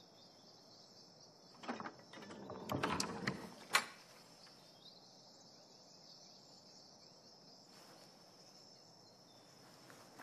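Steady high-pitched cricket chirring, with a wooden door creaking open about two seconds in and a sharp knock of wood or latch just before the four-second mark.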